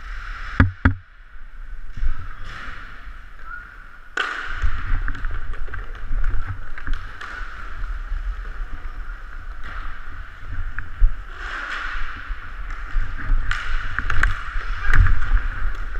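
Steady rushing noise and low wind rumble on a helmet-mounted camera as its wearer skates in a hockey game, broken by a few sharp knocks.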